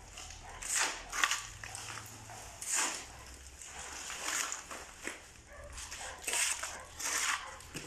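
Shovels scraping across a concrete floor as a damp mix of cement, soil and sand is turned over by hand, in repeated strokes roughly a second apart.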